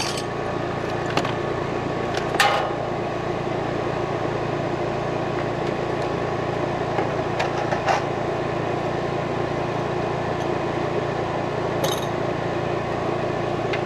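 Steady mechanical hum of a running air-conditioning condenser unit, compressor and fan, with a few short clicks from wire and tools being handled.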